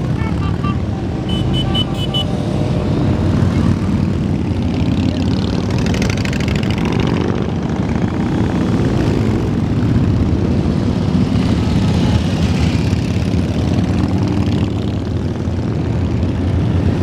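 A long line of cruiser motorcycles riding past in a continuous stream, many engines running together in a steady, loud drone.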